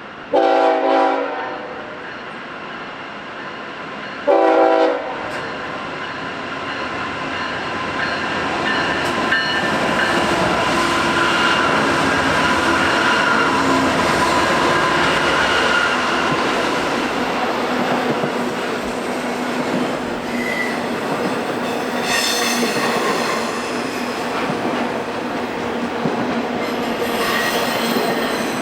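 Diesel locomotive air horn sounding two blasts, the first longer, followed by a freight train passing close by. Its wheels rumble and clatter on the rails steadily, with short high wheel squeals near the end.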